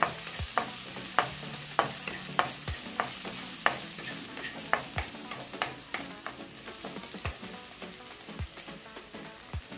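Wooden spatula scraping and tapping against a non-stick kadai in a steady rhythm, about one stroke every half second, as chopped onions and green chilli are stirred and sautéed in hot oil over a light sizzle. The strokes thin out and grow quieter toward the end.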